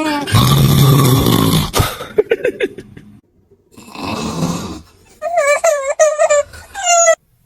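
A man snoring loudly: a long rasping snore, then a noisy breath in. Near the end come several short, high, wavering whimpering cries.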